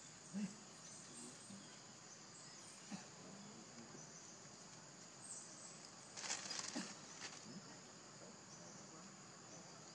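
A steady, high-pitched chorus of insects, faint overall, with a brief scratchy noise about six seconds in.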